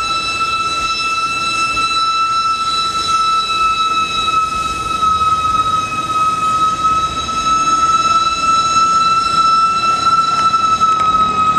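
Steam locomotive whistle held in one long, steady blast, its pitch sagging slightly near the end, over the low rumble of the passing train.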